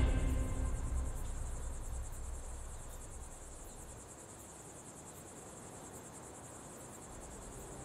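Crickets chirping in a steady high trill. The last of a loud music cue dies away over the first few seconds.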